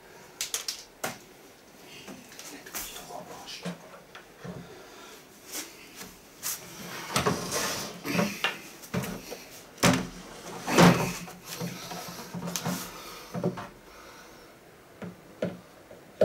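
Panels of a wooden flat-pack cabinet being handled and fitted together by hand: irregular knocks, clunks and scraping, the loudest bursts about seven and eleven seconds in.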